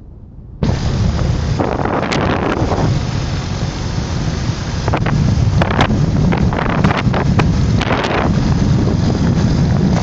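Open off-road buggy being driven: its engine is running under heavy wind buffeting on the microphone, which starts abruptly about half a second in.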